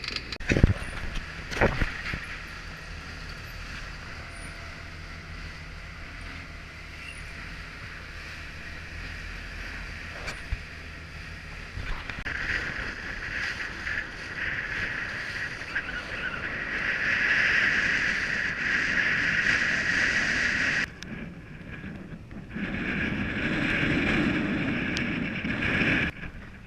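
Nautitech Open 40 catamaran motorsailing into chop, its engine running at a steady 2500 rpm as a low even hum under splashing water. About twelve seconds in, this gives way to a loud rush of wind and water as the boat sails fast in strong wind. The rush cuts off suddenly for a moment and then returns.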